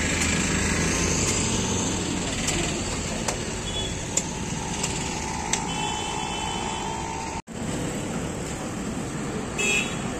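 Street traffic noise: the steady running of passing motorbikes, scooters and other road vehicles, with a vehicle horn tooting briefly about six seconds in.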